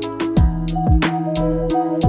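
Background music with a steady beat: deep kick drums that drop in pitch, sharp percussion hits, and held bass and melody notes.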